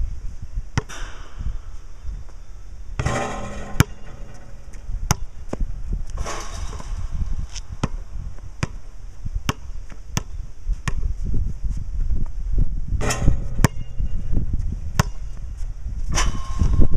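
Basketball bouncing on a concrete court, sharp slaps every half second to a second, over heavy wind rumble on the microphone. A few longer bursts of noise come in between.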